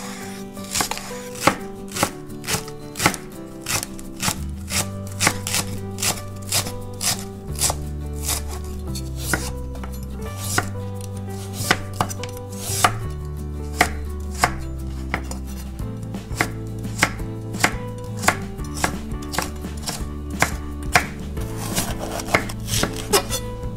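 Kitchen knife chopping vegetables on a wooden cutting board: a steady run of crisp blade strikes on the wood.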